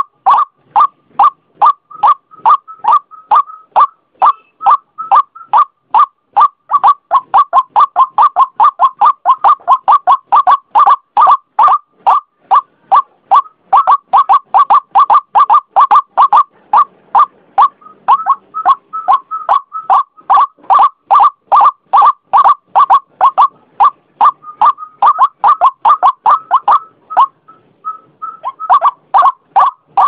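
White-breasted waterhen calling: a loud, fast string of short repeated notes, two to four a second, with a brief pause near the end.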